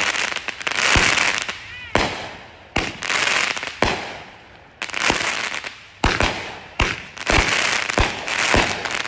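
Consumer fireworks going off in quick succession: a sharp bang every half second to a second, each followed by crackling, with a short whistle now and then.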